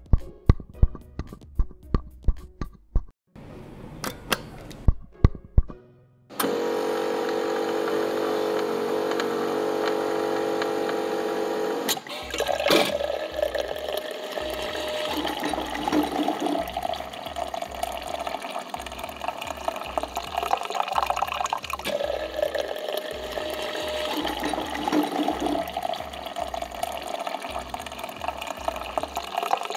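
An espresso machine runs with a steady hum for about six seconds, then coffee streams from its spout into a mug, splashing and filling, for the rest of the stretch. A run of sharp regular ticks comes before the machine starts.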